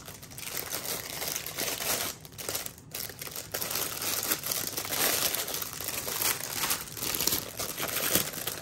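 A clear plastic packaging bag crinkles as a pink binder is handled and worked into it. The crinkling runs on without a break apart from a brief lull about three seconds in.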